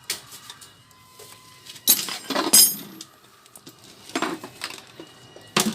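Metal tools and parts clinking and clattering as they are handled, in several separate bursts: the loudest cluster is about two seconds in, with more hits about four seconds in and just before the end.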